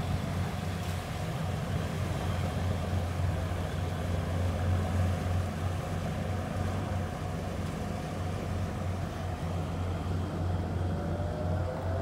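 A pilot boat's engine running as the boat motors out across the harbour: a steady low drone.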